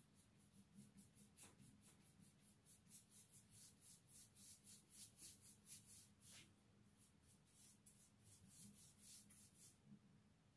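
Faint brushing of a paintbrush laying paint onto a wall, in quick repeated strokes a few a second, with a short pause about two-thirds of the way through.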